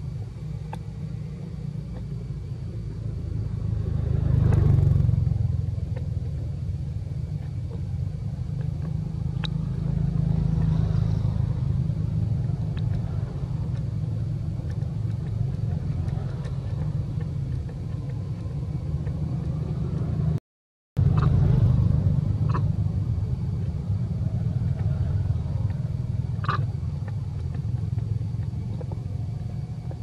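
A steady low rumble, swelling briefly a few times, with a few faint clicks.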